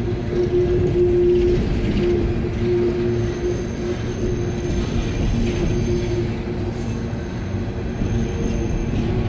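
CSX freight train's open hopper cars rolling past: a steady rumble of steel wheels on rail, with sustained ringing tones over it and thin high tones that come and go.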